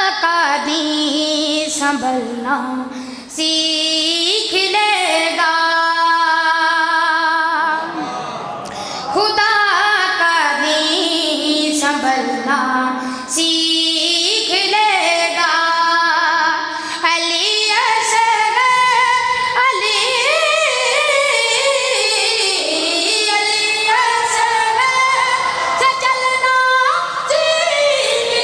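A high solo voice singing a devotional verse unaccompanied, holding long, wavering notes that glide between pitches, in phrases with short breaths between them.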